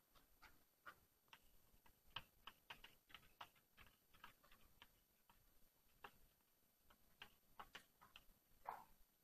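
Faint chalk on a blackboard as words are written: a quick, irregular run of taps and scratches, with a longer scrape near the end.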